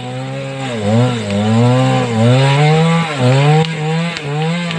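Small two-stroke chainsaw cutting into the base of a standing tree trunk during felling. Its engine pitch drops and recovers several times as the chain bogs in the cut.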